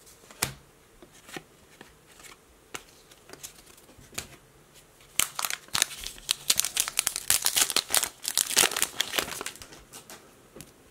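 Hockey cards being flipped through with a few light clicks, then, about five seconds in, an Upper Deck hockey card pack's wrapper being torn open and crinkled for several seconds.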